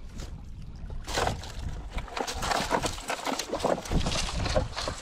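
Striped bass thrashing and splashing in shallow water at a rocky shoreline as it is reeled in, in irregular bursts, over low wind rumble on the microphone.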